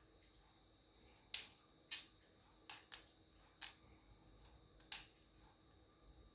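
Six sharp, irregular clicks over about four seconds, made by an African grey parrot at its new toy.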